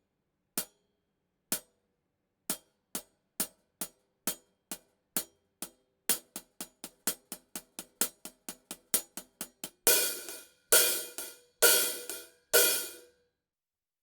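Hi-hat cymbals played with a drumstick. Single strikes start slowly, about one a second, then quicken to a steady pattern of about four a second. Near the end come four longer, ringing strikes, then the playing stops.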